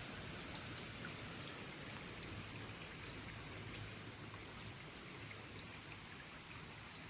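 Faint forest ambience: a steady hiss with a thin high band running through it and scattered light ticks, heard by the tagger as rain or dripping.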